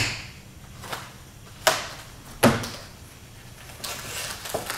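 Cardboard-and-foam packaging of the engine's radiator being handled and opened on a table: sharp knocks and clacks, two of them loud and close together about two seconds in, with softer rustling near the end.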